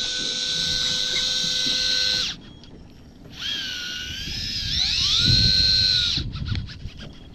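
Electric fishing reel's motor whining as it winds in line in spurts, the way electric jigging works the lure. The whine stops about two seconds in, starts again with a rising pitch, holds, and cuts off near the end, followed by a short run of clicks.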